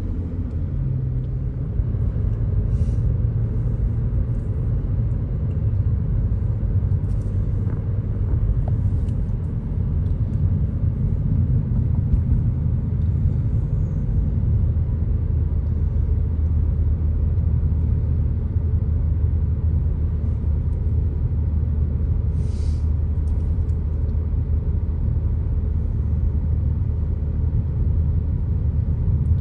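Car driving, heard from inside the cabin: a steady low drone of engine and road noise.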